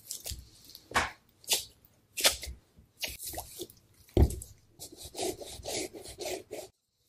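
Wet slaps and rubbing as a raw fish loin is pressed and handled on a cutting board, the heaviest slap about four seconds in. Then comes a stretch of wet, rasping scraping as a knife slides between the skin and the flesh, cut off abruptly near the end.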